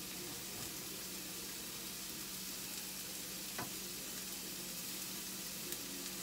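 Chopped onions sizzling steadily as they fry in a nonstick skillet, with a single light click about three and a half seconds in.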